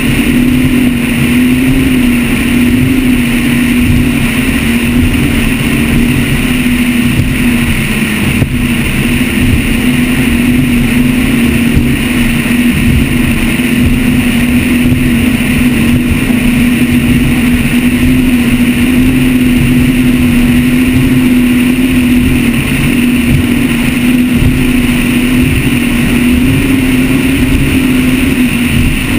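Mercury engines of a Motion Powerboats 43GT catamaran running hard and steady at high cruising speed, one loud drone that wavers slightly in pitch, over rushing wind and water.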